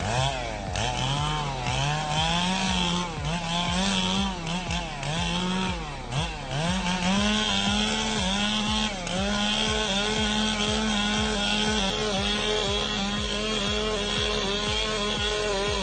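Two-stroke chainsaw running at high revs and cutting wood, its pitch repeatedly sagging and recovering as the chain bogs in the cut and frees up.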